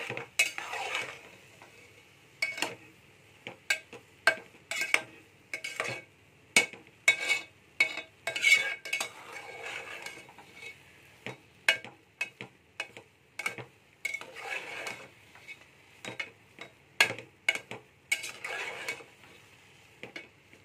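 Metal spatula stirring thick semolina halwa in a steel pot, with repeated irregular clinks and scrapes against the pot's sides and bottom. A soft steady sizzle of frying in ghee runs underneath.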